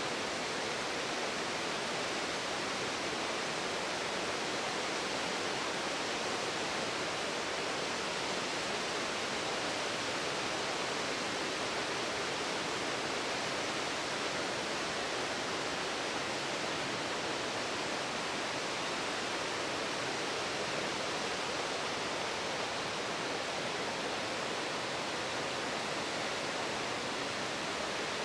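Steady rushing of a wide, low waterfall pouring over a stepped rock ledge into a shallow creek.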